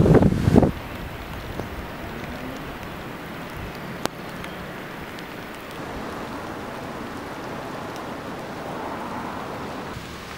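Outdoor ambience of a flooded street. Wind buffets the microphone at first and cuts off abruptly under a second in, then a steady even hiss of water follows, with one sharp click near the middle.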